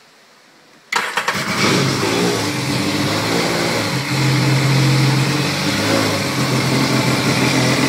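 Sea-Doo GTX's freshly rebuilt Rotax 4-TEC 1500 cc four-stroke engine, supercharger removed, starting at the push of the start button about a second in and settling into a steady idle, a little louder for a moment midway.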